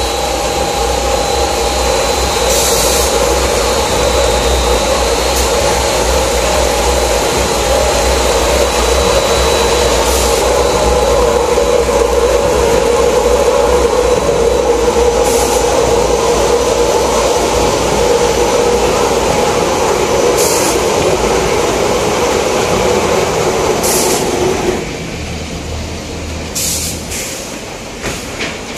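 Rotary veneer peeling machine running while it peels a log into core veneer for plywood: a loud, steady machine hum with a rumble, broken every few seconds by short high hissy bursts. About 25 seconds in, the hum drops away, leaving the quieter running of the veneer conveyor and stacker.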